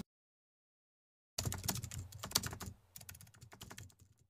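Fingers typing on a computer keyboard: a quick, quiet run of key clicks starting about a second and a half in and thinning out toward the end.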